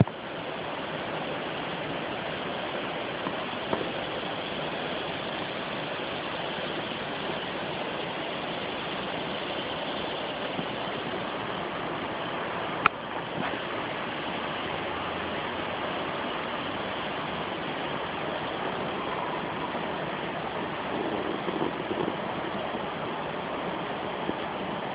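Stream rushing steadily after Hurricane Irene's rains, a full, even wash of water that sounds like a river. A single sharp click about halfway through.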